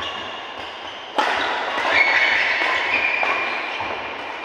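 Badminton racket strikes on a shuttlecock during a rally: one sharp hit at the start and a louder one just over a second in, ringing in a large hall. A steady, louder mix of noise follows the second hit.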